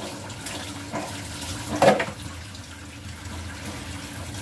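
Tap water running into a kitchen sink, with one louder short knock about two seconds in.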